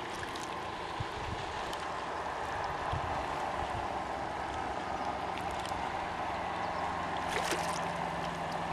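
Loch water lapping and gurgling against a dock, with a low steady hum that comes in about halfway and a few light clicks near the end.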